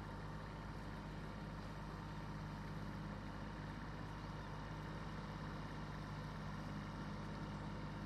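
Steady low mechanical hum with several held tones, like a motor or engine running continuously.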